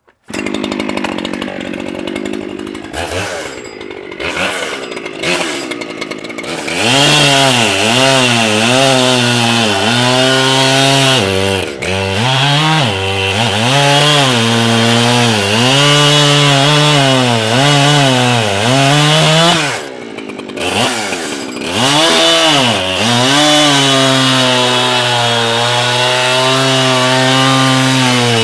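Echo CS-7310P two-stroke chainsaw cutting wood. It is quieter for the first several seconds, then runs loud at full throttle from about seven seconds in, its pitch dipping and recovering again and again as the chain bites, with one deeper drop in revs about two-thirds of the way through.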